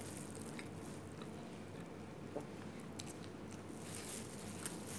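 A person chewing a mouthful of burger with the mouth closed, faint, with a few small scattered clicks.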